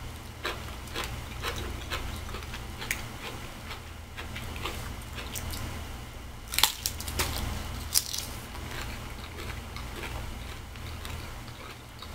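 A person eating close to the microphone: chewing with small wet clicks throughout, and two louder crunchy bites about six and a half and eight seconds in.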